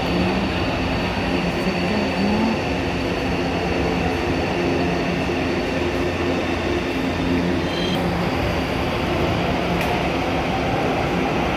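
São Paulo Metro K-series train (K07) pulling out of the station: a steady rumble of wheels and running gear with a few steady tones over it.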